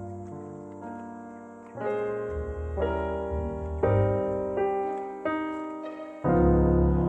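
Background piano music: slow chords struck about once a second, growing louder, with a fuller chord and deeper bass notes coming in near the end.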